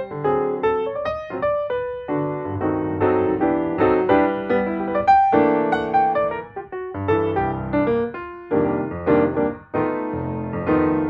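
Background piano music: a flowing melody of notes and chords.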